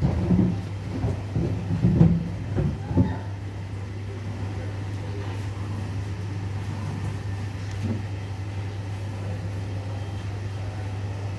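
A steady low hum, with several dull knocks and thumps in the first three seconds.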